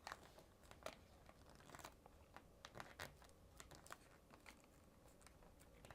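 Faint, scattered rustles and small crinkles of origami paper being folded and creased lightly by hand.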